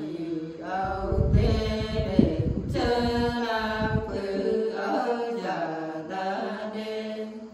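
Women's voices singing a Nùng folk song together, unaccompanied, in long held notes that end right at the close. A low rumble sits under the voices for the first half.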